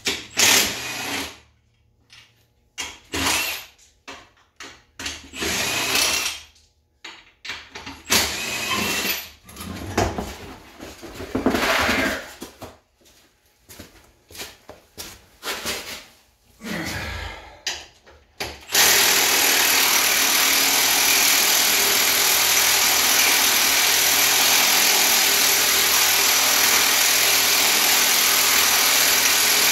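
Short bursts of a power tool on the ATV's wheel lug nuts, coming on and off again and again. About two thirds of the way in, a loud steady rushing noise starts and holds evenly.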